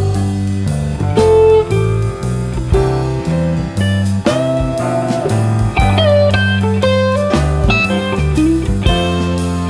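Background music: an instrumental passage led by a guitar, with a few bent lead notes over a steady bass line.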